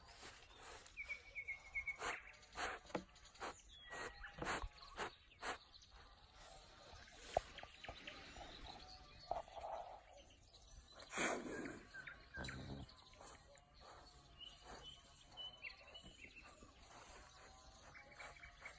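Quiet outdoor ambience: a few faint bird chirps, once near the start and again about two-thirds of the way through, over scattered small clicks and knocks. A little past the middle there is one louder noise lasting about a second.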